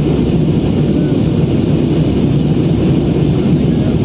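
Steady engine and airflow noise inside the cabin of an aeroplane in flight, a loud, even low rumble.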